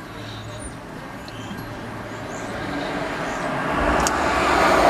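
Road vehicle noise heard from inside a car, a broad rushing sound over a low hum that grows steadily louder through the second half.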